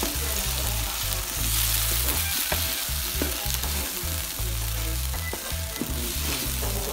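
Diced potatoes, mushrooms, green peppers and broccoli sizzling in a frying pan, stirred with a wooden spoon that scrapes and clicks against the pan now and then.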